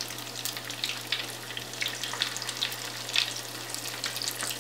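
Marinated chicken pieces coated in egg and cornflour deep-frying in medium-hot oil in a small frying pan: a steady sizzle with frequent crackling pops.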